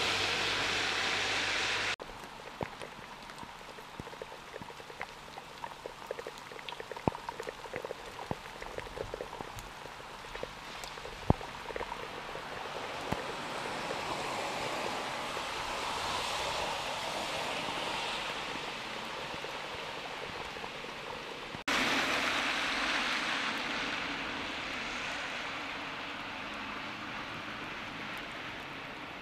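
Steady rain falling, with many single drops tapping sharply close by, most of them in the first half. The rain hiss drops abruptly about two seconds in and jumps louder again a few seconds from the end.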